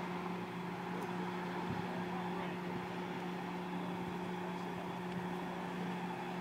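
A vehicle engine running steadily at idle: a constant low hum that does not change in pitch or level.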